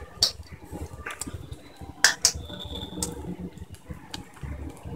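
Vadai deep-frying in hot oil in a steel kadai: a low sizzle with irregular sharp pops and crackles, two loud pops close together about two seconds in.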